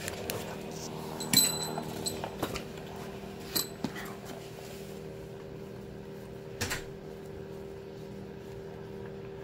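A few sharp metallic clinks of tools and parts being handled around a bare engine block, the loudest about a second and a half in with a short ring, others near four and seven seconds. A steady low electrical hum runs underneath.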